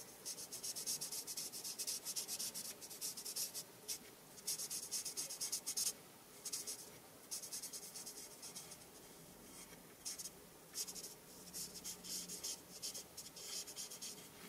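Alcohol marker tip rubbing on stamped cardstock in quick short strokes, colouring and blending: a soft scratchy sound that comes in runs with brief pauses.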